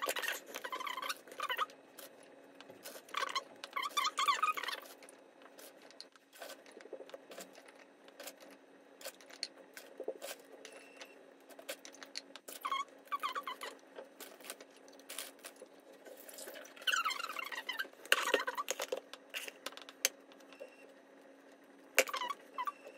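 Metal spoon scraping and squeaking against a plastic jug and a glass dish while thick cream is scooped out and spread, in several bursts. In between come light clicks and taps as dry biscuits are laid into the glass dish.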